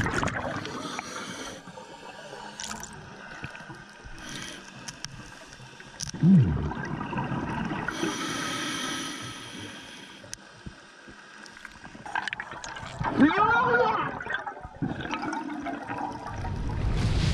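Underwater sound picked up by a camera below the surface: a muffled water wash with gurgling air bubbles from divers' exhalations, with louder gurgles about six seconds in and again about thirteen seconds in.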